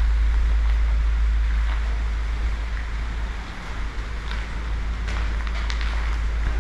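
Steady low wind rumble buffeting the microphone, with a few faint steps and scrapes on a gritty, debris-strewn concrete floor in the second half.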